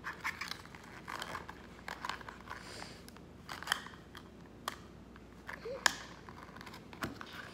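Small paperboard toy box being folded and pressed together by hand: faint crinkling of creasing card, broken by a handful of sharp clicks as flaps and tabs are pushed into place.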